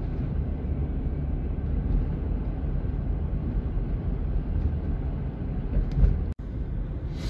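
Car road noise heard from inside the cabin while driving: a steady low rumble of tyres and engine, with a brief break about six seconds in.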